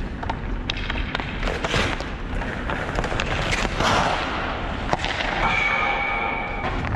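Ice hockey skates carving on ice and a stick tapping the puck in quick clicks, a broad scraping burst about four seconds in as the skater stops and shoots, then a sharp crack about five seconds in followed by a ringing tone that fades out near the end.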